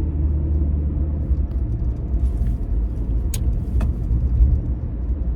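Steady low rumble of a car heard from inside the cabin, with a couple of faint clicks a little past the middle.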